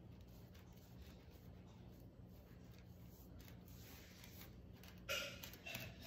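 Faint scratching of a paintbrush stroking the carved wooden parrot over a steady low hum. A brief louder sound comes about five seconds in.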